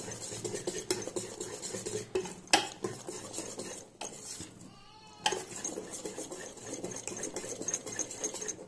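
Wire whisk beating wet wheat-flour batter in a stainless steel bowl: rapid clicking and scraping of the tines against the metal with a wet slapping, pausing briefly about four seconds in.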